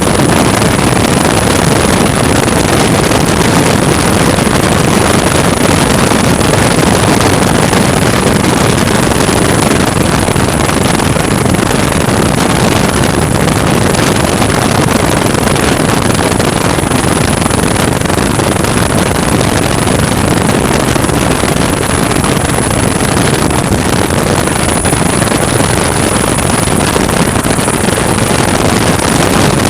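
MH-65 Dolphin twin-turbine helicopter in flight: a loud, steady, dense rotor and engine noise with a thin, steady high-pitched whine above it.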